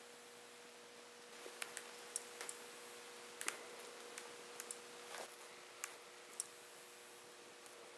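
Faint, irregular clicks and taps of a mobile phone being handled and its buttons pressed, over a steady faint hum.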